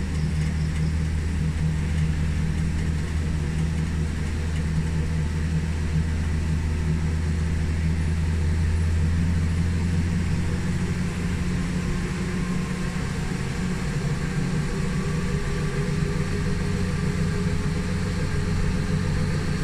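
Tram engine running with a steady low hum, heard from on board. The deepest part of the hum eases about halfway through.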